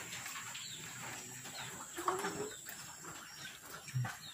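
Chickens clucking faintly in the background, with one short cluck about two seconds in and a few small high chirps, over a few faint clicks.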